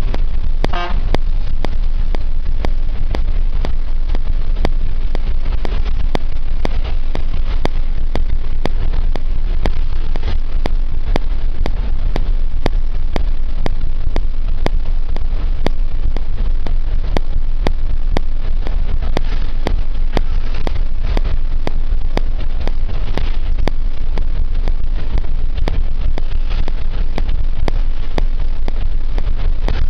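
Steady, loud rumble of engine and road noise heard on board a vehicle travelling at speed.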